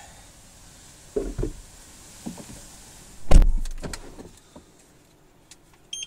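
Car door being shut with one heavy thump about three seconds in, after a couple of lighter knocks. The wind hiss that came in through the open door stops once it is closed.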